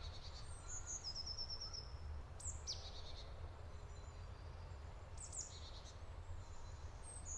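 Faint forest ambience with a few scattered high bird calls: a short rapid trill about half a second in, and brief chirps around two and a half, five and seven seconds in, over a low steady rumble.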